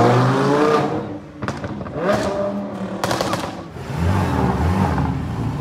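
A car engine revs up, rising in pitch, then a run of sharp exhaust pops and crackles, with a brief blip of revs among them and the engine settling to a low note near the end.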